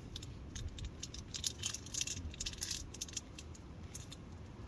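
Crinkly packaging handled close by: irregular crinkling and small clicks, busiest in the middle, over a low steady rumble.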